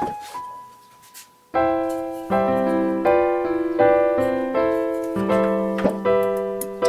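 Background piano music: a phrase fades out, then struck piano chords resume about a second and a half in and continue in a steady rhythm.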